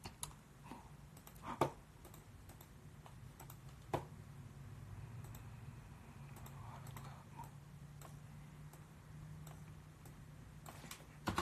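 A few faint, scattered clicks and taps, the sharpest about one and a half and four seconds in, over a low steady hum.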